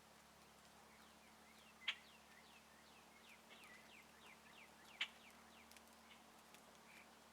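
Wild birds calling: two short, sharp calls about three seconds apart, over a run of faint, quick chirps that fall in pitch.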